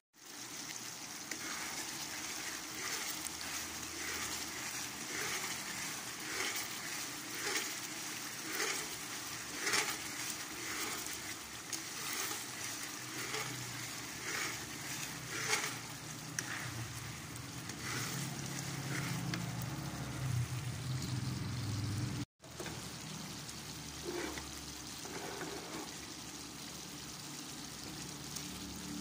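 Coconut milk and brown sugar bubbling and sizzling in a metal wok, stirred with a metal spatula in regular scraping strokes about once a second, as it cooks down toward latik for biko. The sound cuts out for an instant about three quarters of the way through.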